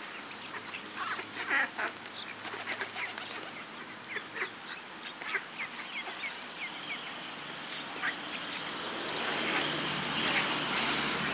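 Flock of mallard ducks quacking and calling in many short, high calls, growing louder in the last few seconds.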